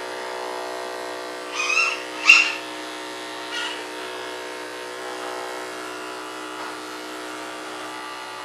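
Electric dog clippers running with a steady hum as they buzz off a puppy's body hair. About two seconds in, a couple of short, high squeaks stand out over the hum, the loudest sound here.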